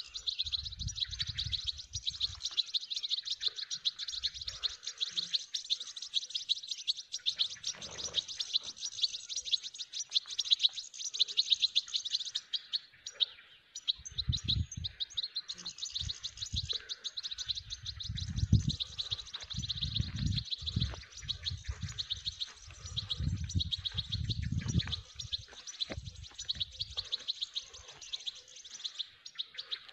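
Goldfinch twittering song, a dense and continuous high chirping that stops briefly about twelve seconds in and again near the end. Low rumbling thumps sound under it through the second half.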